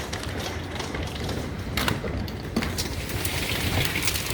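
Hailstones striking hard surfaces in irregular sharp ticks over a steady hiss of rain. The ticks come thicker in the second half.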